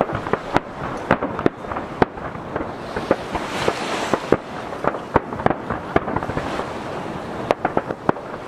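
Aerial fireworks shells bursting in quick, irregular succession, many sharp bangs overlapping, echoing off the nearby mountains. Sea waves wash steadily against the jetty underneath.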